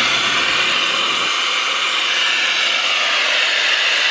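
Compressed air hissing steadily from an air-hose nozzle held to the valve of an inflatable pool sprinkler, filling it with air.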